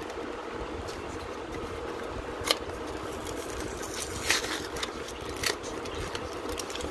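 Foil trading-card booster packs crinkling as they are handled and picked up: a few short sharp crinkles, one about two and a half seconds in, a cluster around four seconds and another near five and a half, over a steady low hum.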